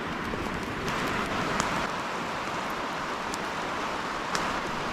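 Steady rushing of water, with a few light clicks and taps over it.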